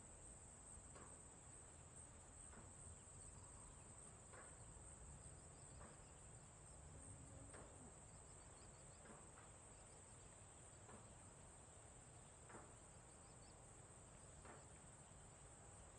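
Faint, steady, high-pitched insect chorus over a low outdoor background hum, with faint short sounds recurring every second or two.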